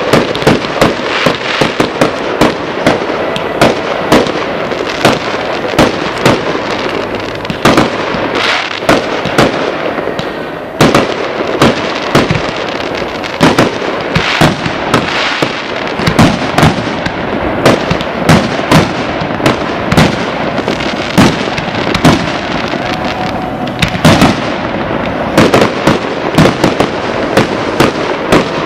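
Fireworks display: aerial shells bursting in a steady run of sharp bangs, about one or two a second, over continuous crackling.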